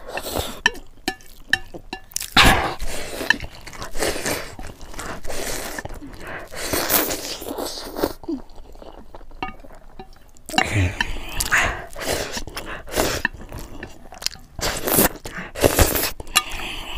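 Close-miked eating of spicy instant noodles and boiled eggs: chewing and biting with quick clicks, and louder noisy mouth sounds every few seconds.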